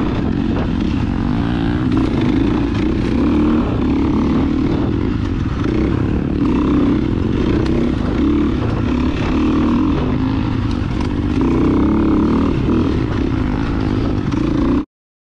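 Dirt bike engine running, with mild swells in its sound, cutting off suddenly near the end.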